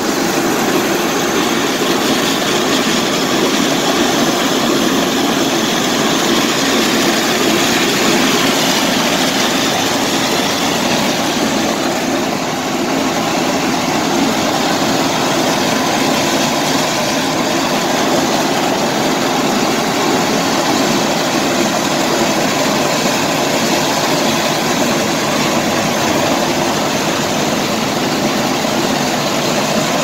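Walk-behind, engine-driven surface grinder running steadily, its grinding head working leftover asphalt off a concrete bridge deck.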